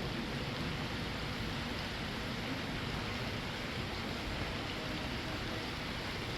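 Steady hiss of simulated rain falling in an exhibit, an even rushing noise with no breaks.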